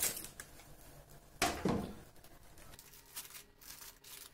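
A plastic cutting board scraping and clattering against a frying pan as a flipped pie is slid off it back into the pan, with the loudest clatter about a second and a half in. Faint rustling of parchment paper follows.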